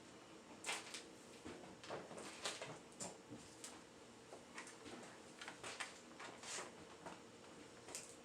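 Scattered light knocks, clicks and scrapes at an irregular pace over a faint steady hum.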